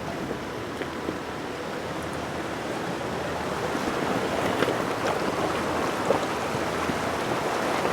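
Rushing, splashing river water as a Jeep fords the river, growing gradually louder, with a few light knocks.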